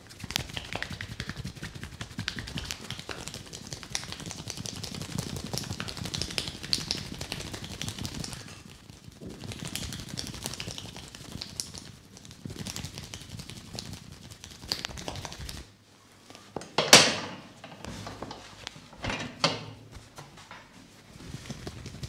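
Hands massaging a head, fingers rubbing and tapping rapidly through the hair and over the scalp, a dense stream of small crackling taps. Near the end come two louder sharp smacks about two seconds apart.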